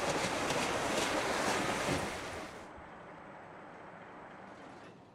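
Rushing water and spray as riders on mats skim into the splash pool at the foot of a water slide, for about two and a half seconds. Then it cuts to a faint steady hiss.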